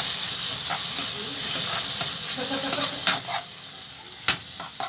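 Onion-tomato masala with freshly added ground spices sizzling in hot oil in a metal pan while a spatula stirs it, clinking and scraping against the pan. The sizzle drops a little about three seconds in, and a sharp click of the spatula on the pan comes near the end.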